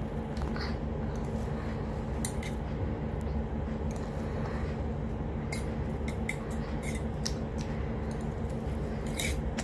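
A steel spoon clinking and scraping against a small steel bowl while dal is spooned out, a few light clicks with most of them clustered about halfway through. A steady low hum runs underneath.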